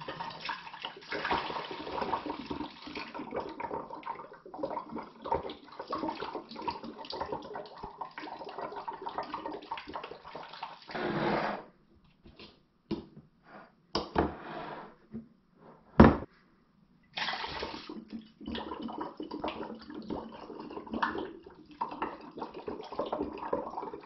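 Liquid poured from a wet/dry vacuum's canister through a plastic funnel into a glass beer bottle, a steady splashing pour. The pour stops about halfway through, there are a few light clicks and one sharp knock as the funnel is moved, and then it starts again into the next bottle.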